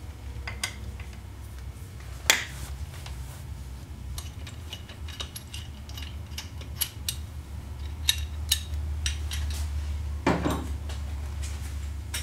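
Scattered metallic clinks and clanks as a steel bearing-installer tool plate and its hardware are loosened and lifted off a motorcycle transmission case, with a sharper clank about two seconds in.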